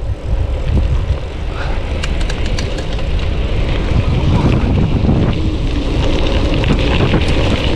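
Wind buffeting the microphone on a moving bicycle, over the rumble of tyres rolling on a gravel path, with scattered small ticks from stones under the wheels.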